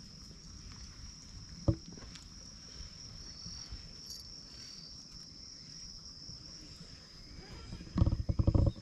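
A steady high-pitched insect drone, with a fainter second tone joining briefly midway. There is a single sharp knock about two seconds in, and a loud low fluttering rumble near the end.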